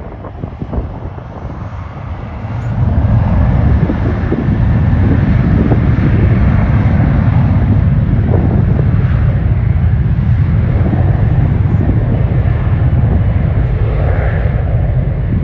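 Jet airliner engines running loud, a deep rumble that swells about two and a half seconds in and then holds, with wind buffeting the microphone.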